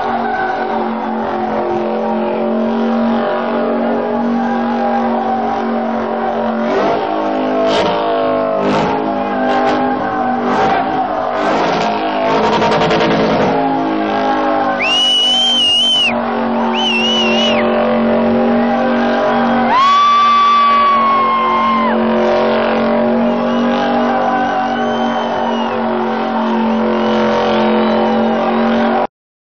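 Car drifting in donuts, its engine held at high revs, with high tyre squeals twice in the middle. The sound cuts off suddenly near the end.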